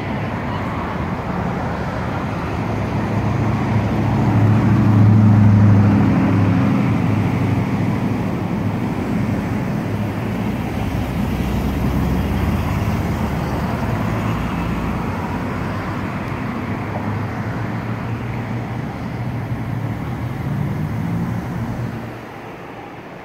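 Road traffic running steadily with a low engine hum, swelling loudest about five seconds in and dropping suddenly near the end.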